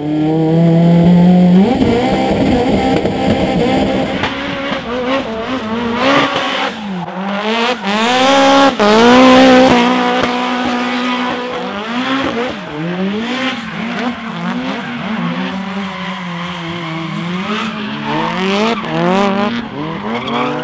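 Drift Lada's swapped Nissan SR20 four-cylinder engine revving hard, its pitch rising and falling again and again as the car slides, with tyres squealing. It holds a steady note for the first second or two, then climbs; the biggest climbs come about six to nine seconds in.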